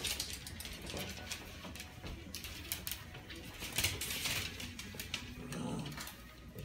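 Dogs' claws clicking and skittering on a hardwood floor as small dogs scuffle and play, in quick irregular ticks, with a brief low sound about five and a half seconds in.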